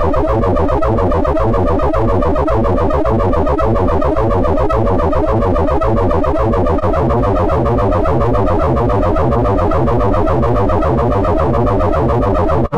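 Two-dimensional wavetable synthesis in Max/MSP: two phasors scan a Jitter matrix of a two-dimensional sine/cosine function, their frequencies stepped by sample-and-hold, giving a harsh, dense electronic tone whose pitch keeps jumping and sliding. It cuts out for an instant near the end.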